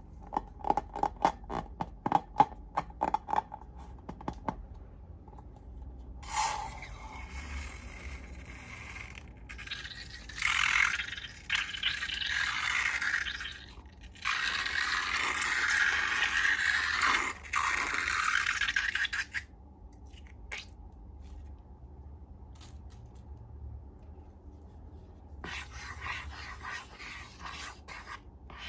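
Slime-making handling noises: a quick run of sharp clicks and taps, then long stretches of scraping and rubbing that stop and start, with a second spell of scraping near the end.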